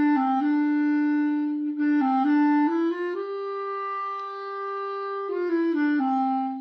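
A solo instrument playing a slow melody in sustained notes, one pitch at a time, with a long held note in the middle; it ends on a held note near the end.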